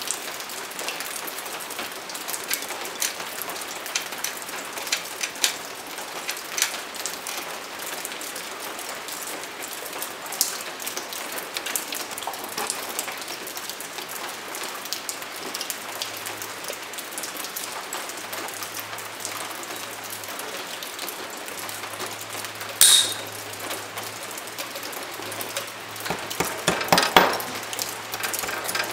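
A steady crackling hiss, with a sharp metallic click a little past the middle and a cluster of clicks and taps near the end from hand work on the dirt bike's rear axle castle nut and cotter pin.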